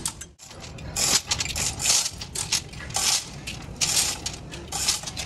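Hand-tool work on metal engine parts: short metallic strokes about once a second, over a steady low hum.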